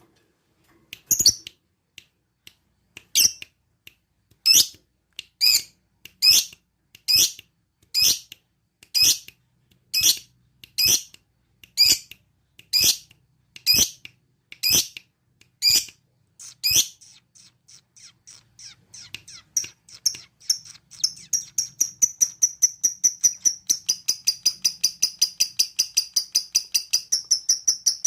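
Lovebird calling: loud, shrill single calls about once a second, then from about two-thirds of the way through a fast run of short ticking notes that speeds up to several a second. This is the rapid 'ngetik' chatter of a lovebird calling out for a rival.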